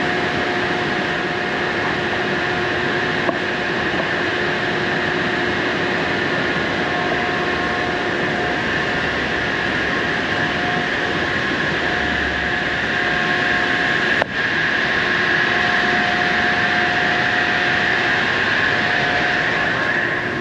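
Steady drone of construction-site machinery: a hiss with several constant hum tones running under it, a little louder after a sharp click about two-thirds of the way through.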